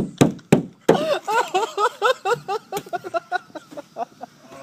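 A few sharp clicks, then a person laughing in quick, rapid-fire bursts, about five a second.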